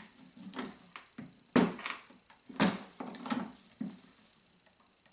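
MEC 600 Jr. shotshell loading press being worked to deprime shells: a run of irregular sharp clacks and knocks of metal parts and cases, the loudest about one and a half and two and a half seconds in.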